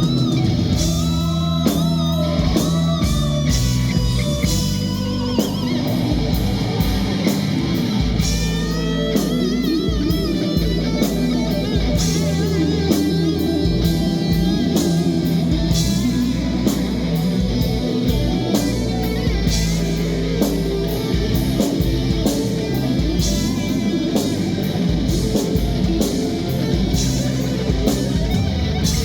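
Rock band playing live with electric guitar out front over drums and bass; the guitar wavers and bends in pitch, with steady cymbal hits.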